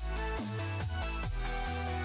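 Background electronic music with a steady beat: a punchy kick drum a little over twice a second over held bass notes.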